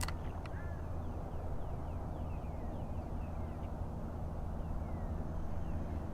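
Small birds chirping repeatedly in short downward-sliding calls over a steady low rumble. There is one sharp click right at the start.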